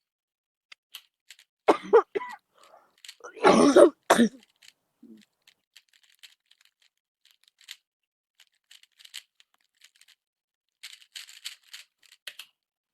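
A Rubik's cube being solved at speed: its plastic layers turning in a rapid run of light clicks, thickest near the end. There is loud coughing about two and four seconds in.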